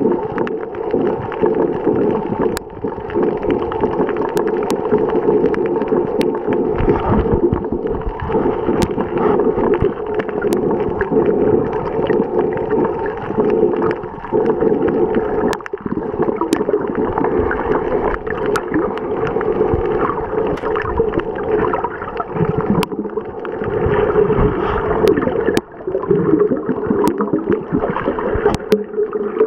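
Muffled underwater noise picked up by a camera submerged on a reef: a steady churning rush of moving water and handling, with a dozen or so sharp clicks scattered through it.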